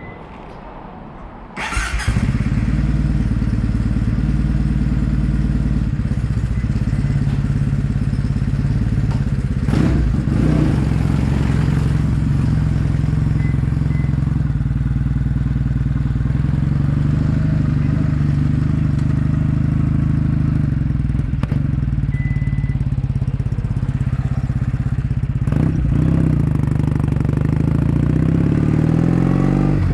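Kawasaki W800's air-cooled parallel-twin engine running through stainless-steel caberton-style silencers: a loud, steady, low exhaust note that comes in suddenly about two seconds in. Two brief knocks sound over it along the way.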